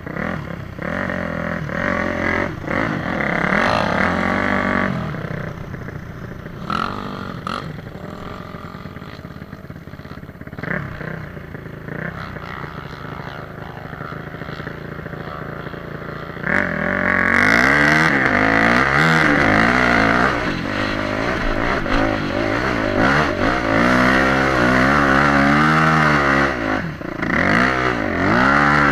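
Motorcycle engine revving, its pitch climbing and dropping over and over; it is quieter through the first half and louder from a little past halfway, with short repeated revs.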